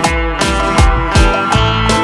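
Background music with guitar and a steady beat.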